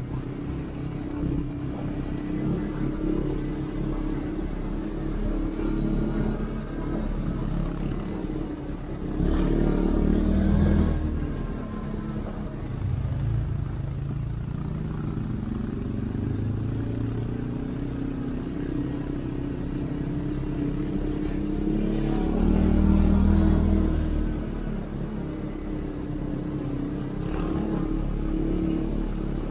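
CF-Moto 450 ATV engine running under way, revving up louder twice: about a third of the way in and again near three quarters through.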